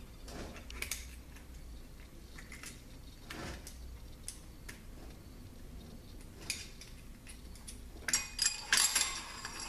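Light metallic clicks and taps as a thin steel ring is worked loose by hand inside an aluminium automatic-transmission case, then a burst of louder clinking and scraping of metal on metal about eight seconds in as the ring comes free.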